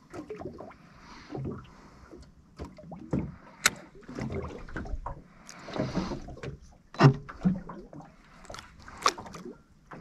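Water lapping and slapping against the hull of a small drifting boat, with scattered knocks and clicks from the boat and gear, the loudest a sharp knock a little after halfway.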